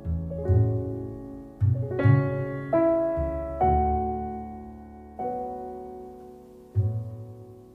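Background piano music: slow notes and chords, each struck and then fading.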